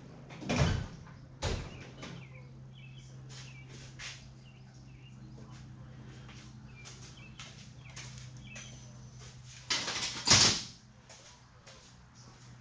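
Hand tools and parts being handled during a dirt bike handlebar swap: scattered light clicks and clinks, two louder knocks in the first two seconds and a louder clatter about ten seconds in, over a steady hum.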